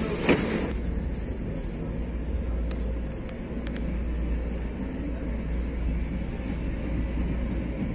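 TE-90 light rail train running: a steady low rumble with a sharp knock just after the start and a few faint clicks around the middle.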